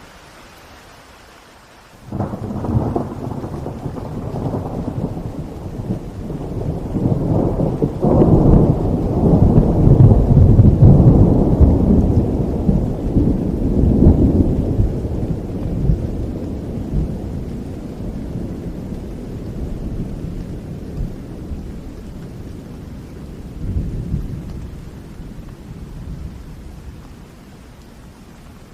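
Steady rain with a long roll of thunder that breaks in sharply about two seconds in, swells to its loudest around the middle, and slowly rumbles away, with a smaller rumble near the end.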